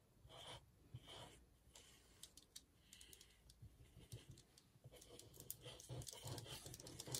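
Faint, scattered light clicks and taps of paper being handled while a piece is glued down, a little busier and louder toward the end.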